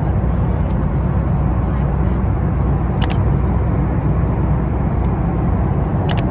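Steady low rumble of an airliner cabin in flight, from the engines and the air rushing past, with a couple of brief ticks about three seconds in and again near the end.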